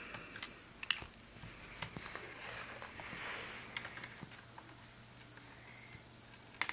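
Small screwdriver working the tiny screws out of a laptop's screen bracket: scattered light clicks and a soft scraping, with a sharp click about a second in and another near the end.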